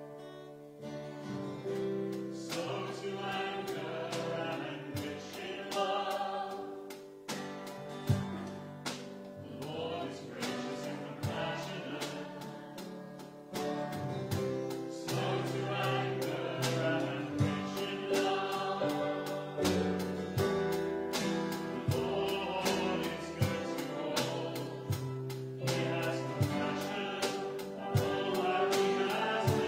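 Congregation singing a worship song with a small band of violin and guitar, over a steady strummed beat.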